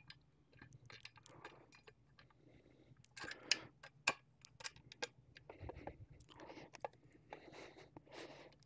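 Light clicks, taps and rubbing from hands working with small metal parts and tools. The sharpest clicks come about three and a half and four seconds in.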